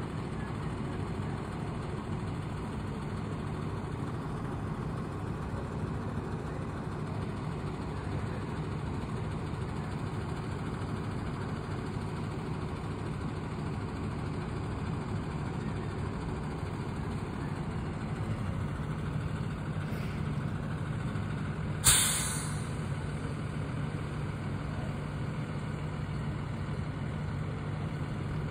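School bus diesel engine running at low speed with its engine cooling fan engaged, a steady drone as the bus creeps forward. About 22 seconds in there is a sudden sharp hiss of released compressed air that dies away within a second.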